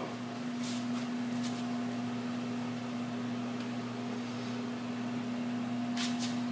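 Steady electrical hum with a low, even tone from idle, powered-up machinery, with a few faint clicks.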